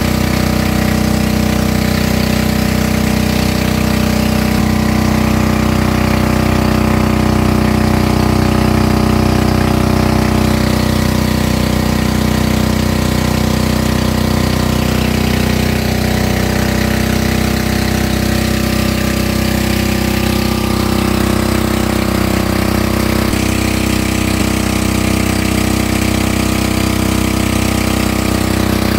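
Motorboat engine running loud and steady at a constant speed, with no rise or fall in pitch, while the boat tows a raft.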